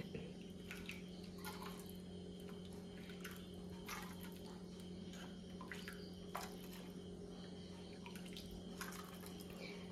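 Faint drips and light clicks of hot soup being poured from the pot into a bowl, scattered every second or so, over a steady low hum.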